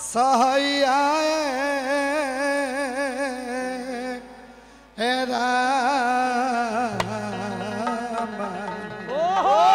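Male folk singer singing a Bhojpuri chaita through a stage PA, drawing out long held notes with a wavering, ornamented pitch. The phrase breaks off about four seconds in and resumes a second later, ending in quick rising and falling turns.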